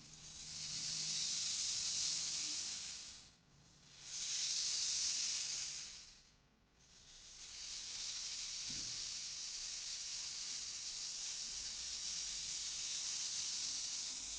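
Rainstick (raindrop stick) pellets trickling down inside the tube in a soft, rain-like hiss. It swells and fades as the stick is tipped: two short pours, then a longer, steadier one from about halfway in.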